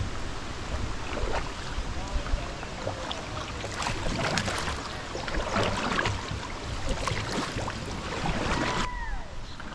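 Water splashing and knocking around a kayak on the river, with irregular clusters of splashes in the middle and wind rumbling on the microphone. A short falling whistle comes near the end.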